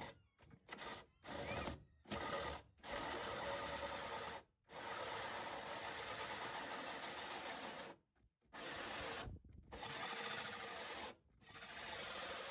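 Cordless drill turning a 5.5-inch hole saw as its teeth cut into the fiberglass cockpit coaming: a few short bursts at first, then long stretches of steady cutting broken by brief stops.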